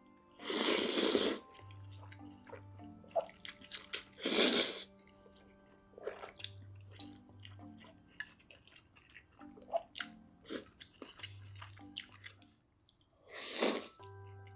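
A person eating, with three loud slurps near the start, about four seconds in and near the end, and small chewing clicks between them, over soft background music with a repeating bass pattern.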